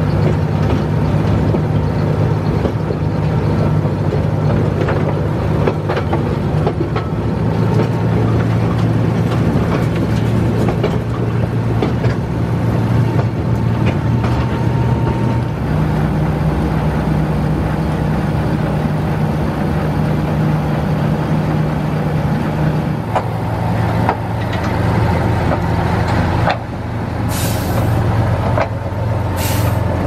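EMD SW1200 diesel switcher's engine running steadily, heard from the cab, its note shifting twice as the throttle changes. Near the end come two short, sharp hisses of air about two seconds apart, typical of the air brakes being worked.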